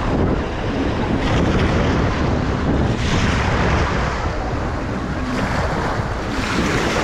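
Strong wind buffeting the microphone over surf breaking on a beach, the wash of waves swelling up several times.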